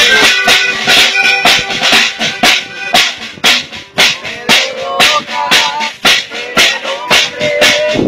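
A small live band playing: accordion, acoustic guitar, saxophone and a drum on a stand, with the drum strokes keeping a steady beat of about two a second.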